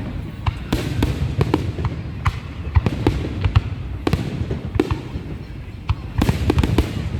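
Fireworks going off in quick, irregular succession: many sharp bangs and cracks, several a second, over a steady low rumble.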